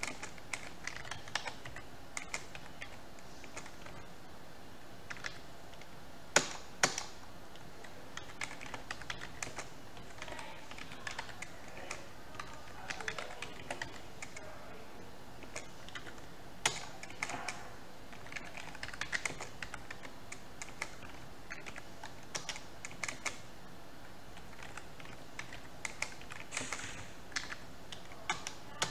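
Typing on a computer keyboard: irregular runs of keystrokes with short pauses between, and one louder click about six and a half seconds in.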